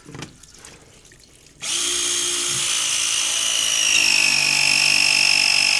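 Battery-powered copper press tool pressing a copper press fitting: after a few faint clicks, its motor starts suddenly about a second and a half in and runs as a steady whine whose pitch slowly sinks as the jaws close on the fitting.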